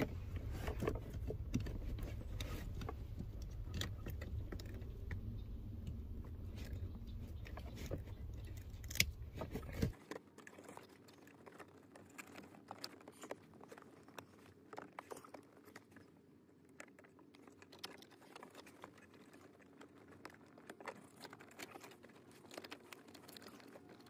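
Light rustling and scattered small plastic clicks as wiring and connectors for a trailer brake controller are worked and tucked in by hand behind the lower dash panel. A low rumble underneath cuts off suddenly about ten seconds in.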